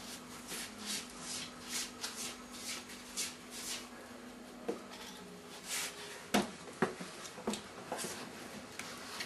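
Faint, slow shuffling footsteps, the feet scuffing the floor about twice a second, then a few sharper taps in the second half.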